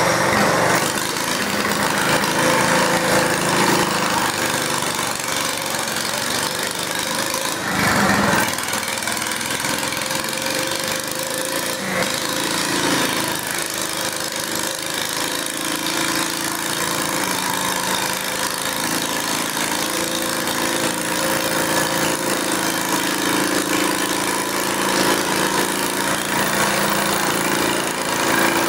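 Small garden tractor engine idling steadily, with one brief louder burst about eight seconds in.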